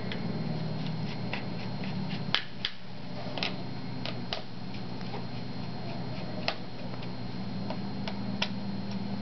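Small Phillips screwdriver backing out the screws of a Dell laptop's bottom cover: scattered, irregular light clicks and ticks as the bit works in the screw heads, over a low steady hum.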